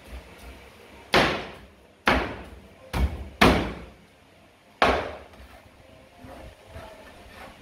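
Large knife chopping through fried chicken onto a plastic cutting board: five sharp chops over about four seconds, two of them close together.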